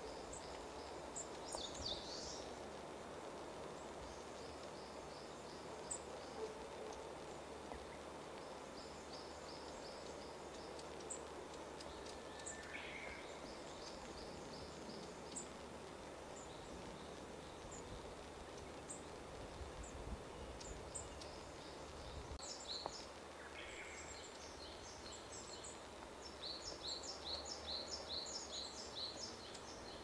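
Faint songbirds singing in woodland: repeated thin, high-pitched note series and trills throughout, a couple of lower single chirps, and a faster run of notes near the end, over a steady background hiss.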